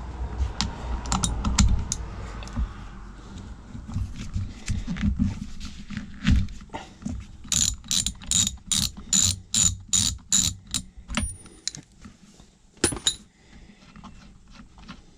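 Socket ratchet fitted with a 13/16 socket, working a nut with knocks and clunks of the tool being handled. Partway through comes a run of about ten evenly spaced ratchet clicks, about three a second.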